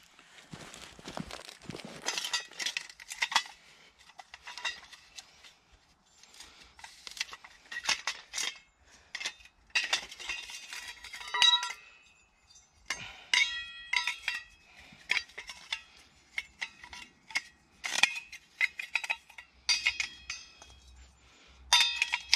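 Metal camp cookware and kit clinking and clanking as it is handled: irregular knocks, many with a short metallic ring.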